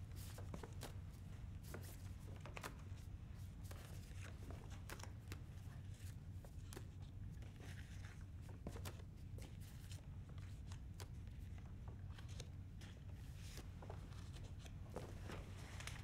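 Quiet indoor room tone: a steady low hum with scattered faint clicks and rustles.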